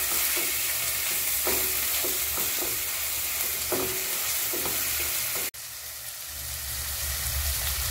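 Chopped onion and green capsicum sizzling in hot oil in a non-stick pan while a spatula stirs them, with short scraping strokes against the pan. About five and a half seconds in the sound drops suddenly; the stirring stops and a quieter sizzle goes on.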